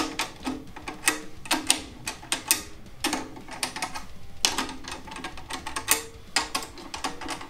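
Clear Remo resonant head of a 10-inch tom tapped with a drumstick while its tension rods are run in finger tight, about two taps a second, each giving a short, slack ring. The head is only at even finger-tight tension, the starting point before tuning up.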